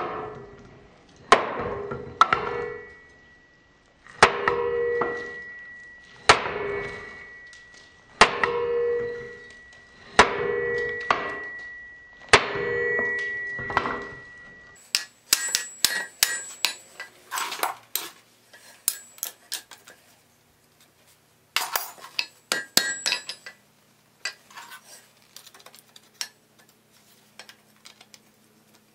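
Hand forging hammer striking red-hot steel bar stock on an anvil, with blows roughly a second apart, each followed by a clear metallic ring. About halfway through, the blows give way to quicker, lighter clinking taps with short pauses between them.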